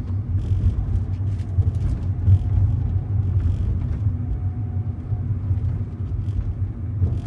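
Cabin sound of a 2014 Lancia Ypsilon on the move: its 1.2-litre Fiat four-cylinder petrol engine running under a steady low rumble of engine and road noise, heard from inside the car.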